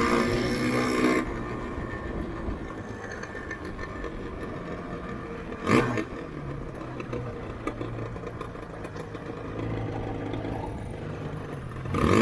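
Yamaha RZV500R two-stroke V4 engine running, loud for the first second, then quieter and steady, with one short sharp burst about six seconds in.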